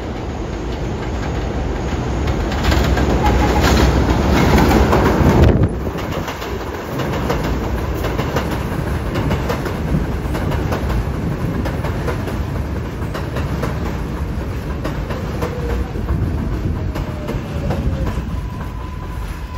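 R142A subway train pulling into an elevated station: wheels clatter over the switches, growing louder, then the cars run alongside the platform with steady rolling noise and clicks. Near the end a faint falling motor whine comes in as it slows, and then a steady high tone.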